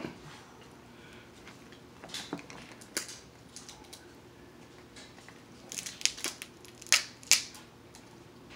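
King crab legs being snapped and cracked apart by hand: sharp cracks of shell, a quick cluster about six seconds in and the two loudest about a second later.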